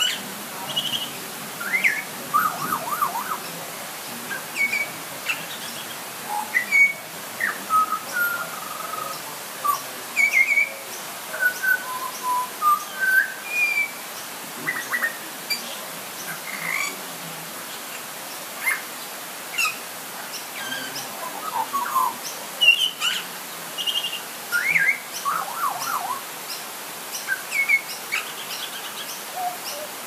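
Pied butcherbird singing: a string of short, clear fluting whistles, some gliding up or down in pitch, scattered all through with brief gaps, over the steady hiss of light rain.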